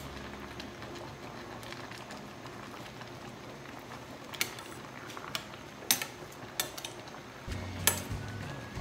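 Metal ladle clinking and scraping against a stainless steel cooking pot of sinigang while it is stirred and ladled: several sharp clinks, the loudest about six seconds in, over a steady hiss.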